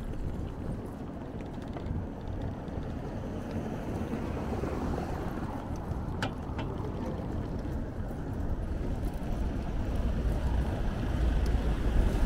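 Riding noise from a bicycle-mounted camera: low wind rumble on the microphone mixed with street traffic, growing louder near the end. Two short clicks come about halfway through, half a second apart.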